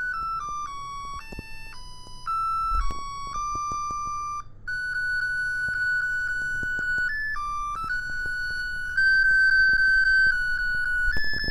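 Music: a simple melody of clean, held notes stepping up and down, the notes short at first and longer and held from about halfway through.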